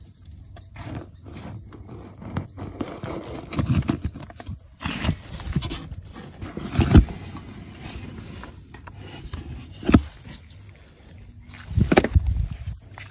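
Irregular wet scraping and rustling from a container of live swamp eels and snakehead fish being handled, with a few sharp knocks in the second half.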